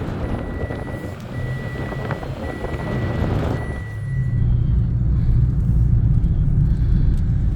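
Car driving with a steady low road and engine rumble that gets louder after about four seconds. Over it, a high electronic beep repeats about once a second, each tone nearly a second long, and stops about four and a half seconds in.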